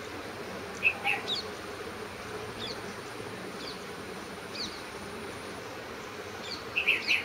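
Insects buzzing steadily, with short high chirps from small birds about a second in and again in a cluster near the end, which are the loudest moments.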